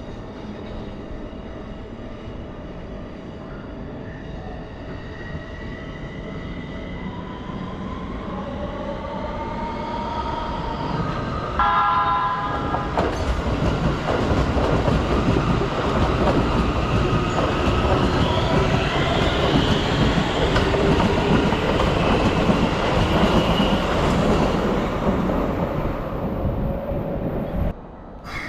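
A Keikyu electric train approaching and passing close by: a motor whine that rises in pitch as the train speeds up, a short horn blast about twelve seconds in, then a loud rumble and clatter of wheels on the rails as the cars go by. The sound cuts off suddenly near the end.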